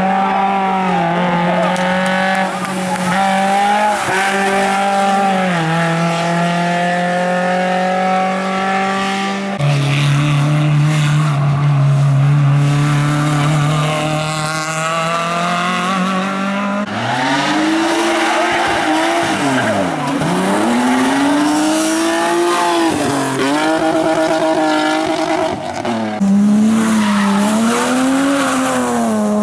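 Hillclimb race car engines at full effort: a high engine note held fairly steady, a sudden switch to a lower note about nine seconds in, then from about seventeen seconds in the pitch swings up and down repeatedly as the engine revs rise and fall.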